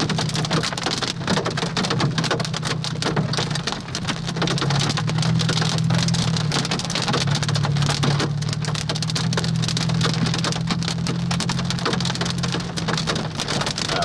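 Hailstones pelting the car's roof and windshield in a dense, unbroken clatter, heard from inside the moving car. A steady low hum of the car runs underneath.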